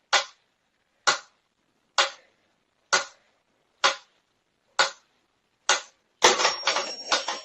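A series of sharp knocks or taps, seven in a steady rhythm about one a second, then a quick flurry of clattering knocks near the end with a faint high steady tone under it.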